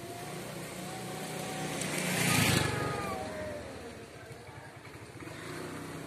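A motor vehicle passes, its engine noise rising to a peak about halfway and then fading. Under it, two cats in a standoff give faint, drawn-out, wavering yowls.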